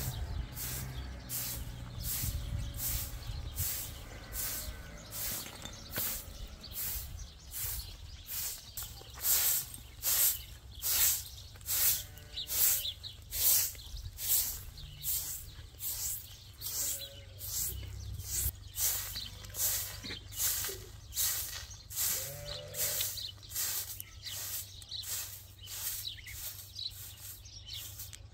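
Short-handled straw broom sweeping dusty ground, a dry swish with each stroke at roughly two strokes a second, loudest in the middle stretch. A few faint bird chirps come through now and then.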